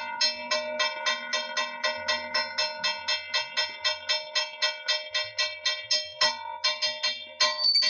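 Hand-held puja bell rung rapidly and evenly, about five strokes a second, as the aarti is performed. The ringing breaks off briefly about six seconds in, then resumes, and a higher, brighter ring joins near the end.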